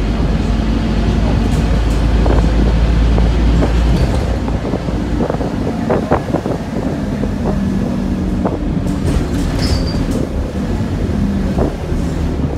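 Inside a Scania OmniCity single-deck bus under way: the diesel engine's steady drone and road rumble, with the engine note shifting as it pulls. Rattles and knocks from the bus body and fittings come through, clustering about six seconds in.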